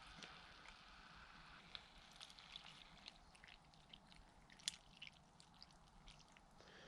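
Near silence, with the faint crackle and hiss of a small wood fire in a camping stove cooking food. The hiss fades after about a second and a half, and there are scattered small ticks with one sharper crack later on.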